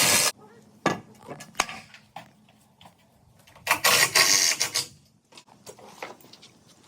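Knocks and clatter of building work: a loud sharp knock at the start, a few lighter knocks, then a longer, about one-second scrape or rattle about four seconds in.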